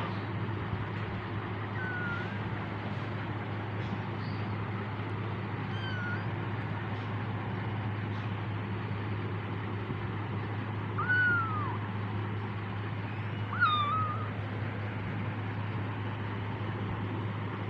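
Kitten mewing: four short, high mews, two faint ones in the first half and two louder ones about two-thirds through. A steady low hum runs underneath.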